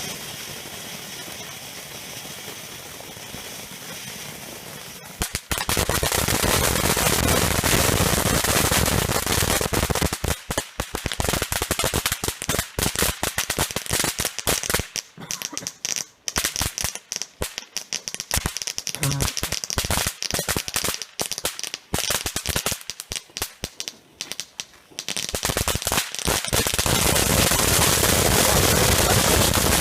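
A long string of New Year's firecrackers going off in rapid, dense bangs, starting abruptly about five seconds in. It thins with short gaps partway through, then turns into a continuous crackle near the end.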